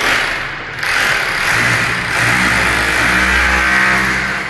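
Electric drill with a masonry bit boring into a solid wall, running at full speed. It cuts in abruptly, dips briefly about a second in, then runs steadily and eases off at the end.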